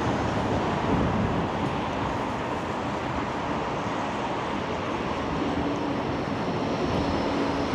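Steady rushing noise of road traffic passing, with a faint low engine hum in the second half.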